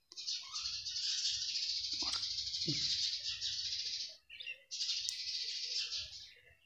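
Many small birds chirping and chattering continuously, a dense high-pitched flock noise that breaks off briefly about four seconds in.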